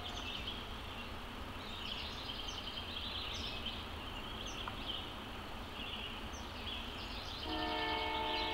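Steady high-pitched trilling and short chirps of the woodland background; about seven and a half seconds in, a train horn starts blowing a long steady chord of several tones, held through the end.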